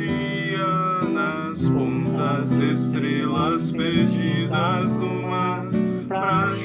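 Choir singing with strummed acoustic guitar accompaniment.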